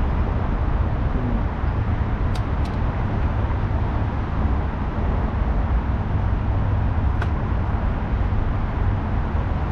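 Steady rumble of road traffic, with a few faint small clicks about two seconds in and again near the end.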